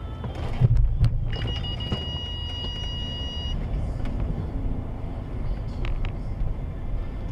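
Car interior rumble of engine and road from a dash camera, with two heavy thumps about half a second apart around the first second. Then a steady high-pitched tone sounds for about two seconds and cuts off.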